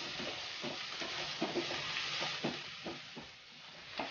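Sliced onions and whole spices sizzling as they fry in hot ghee and oil in a nonstick pan, stirred with a wooden spatula that scrapes the pan in irregular strokes. The onions are being sautéed until soft.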